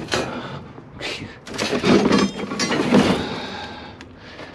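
Pieces of scrap metal clanking and banging against each other as they are handled and pulled out, a run of sharp knocks with brief metallic ringing, loudest in the middle.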